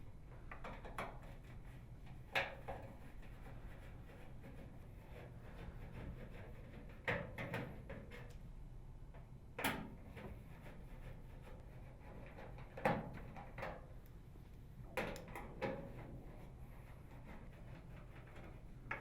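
A scattering of light clicks and knocks, several seconds apart, from a screwdriver with a Torx bit and screws being worked on a microwave oven's cabinet cover as the rear screws are unthreaded.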